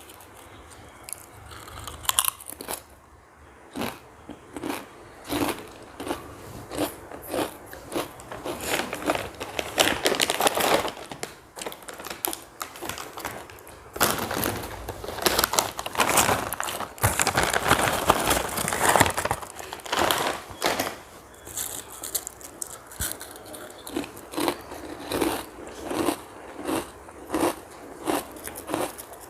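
A person crunching and chewing potato chips: a steady run of crisp bites and crunches, about two a second near the end.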